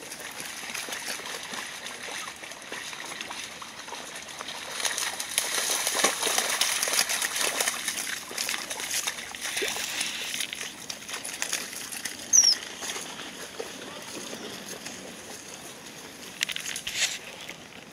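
Golden retrievers wading through a shallow, muddy creek, water sloshing and splashing under their legs. The splashing is loudest from about five to eleven seconds in, then turns to quieter rustling as they push through dry reeds and grass.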